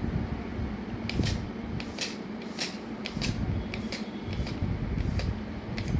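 Smart-lock tape measure being worked by hand: about a dozen sharp, irregular clicks from its lock, retraction switch and blade, starting about a second in.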